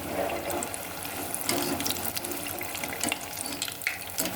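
Potato rings deep-frying in hot oil: a steady sizzle with scattered crackles and clicks as the browned rings are scooped out.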